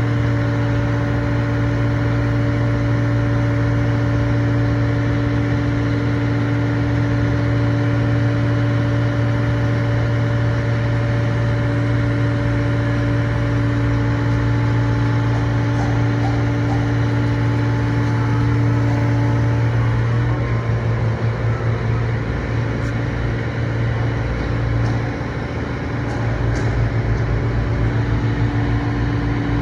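Heavy construction machine's diesel engine running steadily. About twenty seconds in, its low tone turns into an even throbbing pulse, with a few faint clicks.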